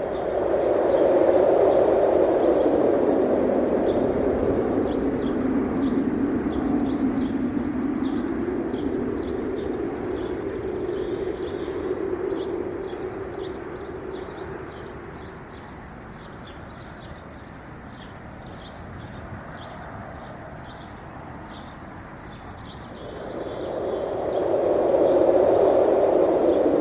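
Wind blowing in gusts: loud at first, easing off in the middle and rising again near the end. Small birds chirp rapidly throughout, in many short high notes.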